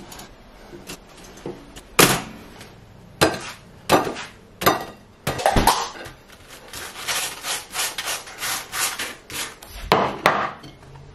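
Knife spreading butter on toast: a run of quick dry scrapes, about three a second, after a few separate knocks and clatters of toast and plate.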